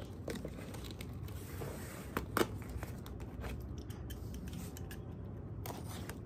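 Corrugated cardboard box being opened by hand: flaps pulled open and pressed flat, scraping and rustling, with scattered clicks and one sharp, loud click about two and a half seconds in.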